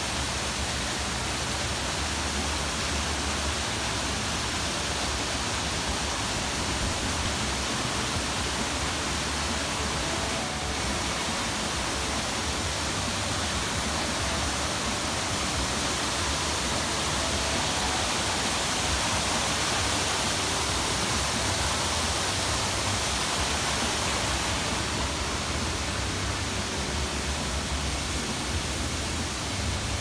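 Steady rush of water from a small waterfall spilling over rocks.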